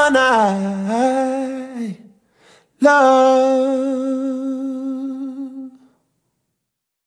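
Unaccompanied final notes of a song: a lone voice holds a long note with vibrato, breaks off about two seconds in, then holds a second long note that fades away.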